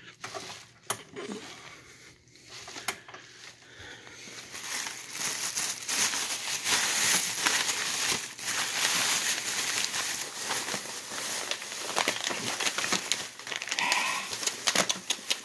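A brown paper bag crinkling and rustling continuously as it is unfolded and rummaged through, with candy wrappers crackling inside it. A few light knocks and clicks come in the first few seconds, before the rustling starts.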